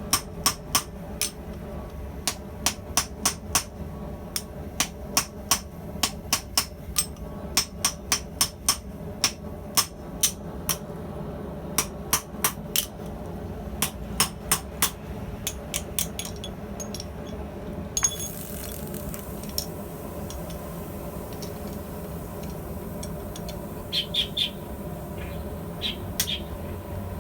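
Hand hammer striking hot steel tubing on an anvil, forging a pintle hinge: quick runs of ringing blows, about two or three a second with short pauses between runs, stopping about two-thirds of the way through. A steady low hum runs underneath.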